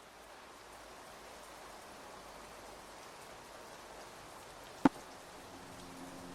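Rain ambience fading in slowly as the intro of an atmospheric phonk track, with a single sharp crack about five seconds in. Near the end, held musical notes come in over the rain.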